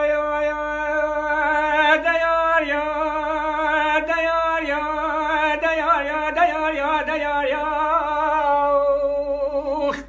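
Kurdish dengbêj-style singing: a lone male voice, unaccompanied, holding long notes decorated with quavering ornaments, and breaking off abruptly at the very end.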